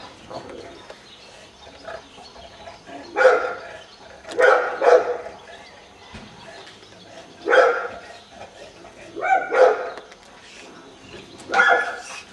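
A dog barking in short single barks, about seven in all, spaced a second or more apart, with two quick pairs among them.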